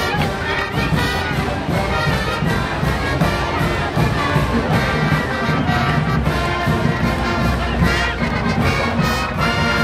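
Brass band playing continuously, with trumpets and trombones prominent, over crowd noise.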